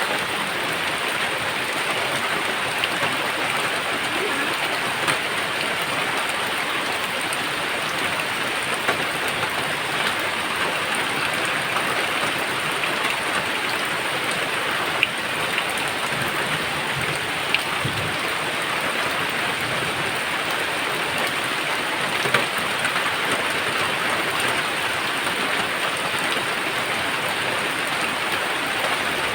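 Steady, heavy rain falling, with a few sharp drip ticks standing out now and then.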